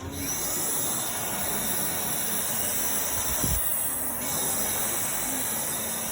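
Dyson V11 cordless stick vacuum cleaner starting up and running steadily, a loud airy hiss with a thin high whine from its motor.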